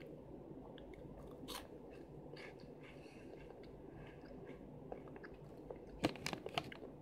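Faint chewing and crunching of a crunchy corn-and-potato snack fry (Chester's Flamin' Hot Fries) over a steady low hum. Near the end comes a short cluster of louder crackles.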